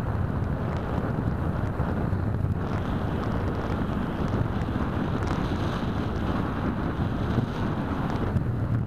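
Steady rush of airflow buffeting the microphone of a keychain camera mounted on an EasyStar 2 RC foam plane in flight.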